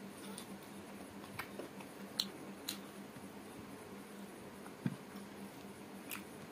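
Eating by hand: wet chewing and mouth smacks, with fingers working rice and meat curry on a plate. A few sharp clicks are scattered through, and a single dull thump comes about five seconds in, over a faint steady hum.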